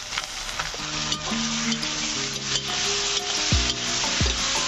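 Raw chicken pieces sizzling in hot oil and masala in a steel wok, stirred and scraped with a metal spatula. A low beat thumps about once every 0.7 seconds over the last second or so.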